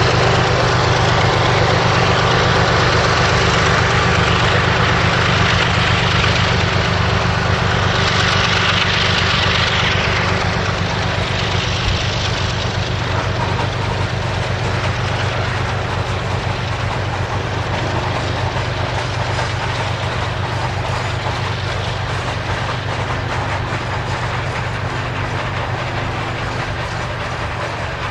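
Lead diesel locomotives of a heavy freight train working under power as they pull the train away, a steady engine drone that slowly fades as they recede. The freight cars roll past as the drone fades.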